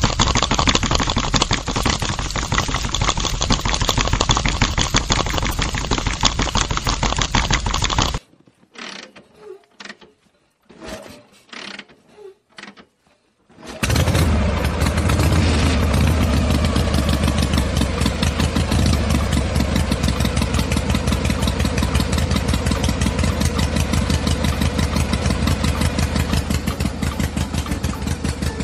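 A toy cement mixer's small electric motor turns its drum with a dense rattling whir, which cuts off about eight seconds in. After a few seconds of faint clicks, the motor of a miniature DIY sugarcane crusher starts. It runs steadily with a low hum, turning its flywheel and rollers.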